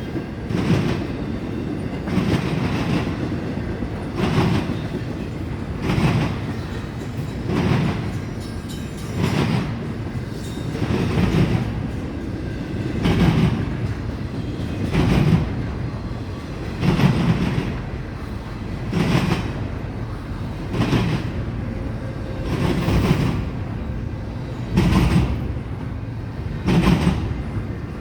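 Freight cars of an intermodal train rolling past, their wheels clattering over the track in a regular beat about every two seconds over a steady rumble.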